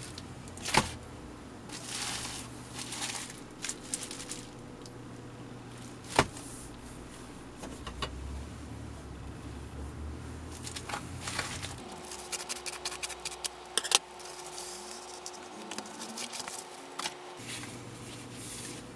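Handling noises from opening a plastic bubble mailer: the padded envelope crinkling and being cut with scissors, with a quick run of snips about halfway through. A few sharp knocks stand out, the loudest about 1, 6 and 14 seconds in.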